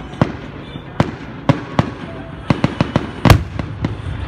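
Fireworks going off: an irregular run of sharp cracks and bangs, about a dozen, with the loudest bang a little over three seconds in.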